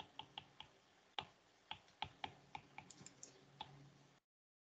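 Faint, irregular clicks of a stylus tip tapping on an iPad's glass screen while handwriting, about ten taps at an uneven pace. The sound cuts out completely near the end.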